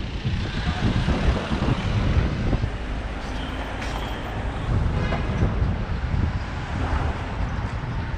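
City street traffic heard from a moving bike, with wind rushing over the action camera's microphone as a heavy, steady low rumble. A short high-pitched tone sounds a little past three seconds in.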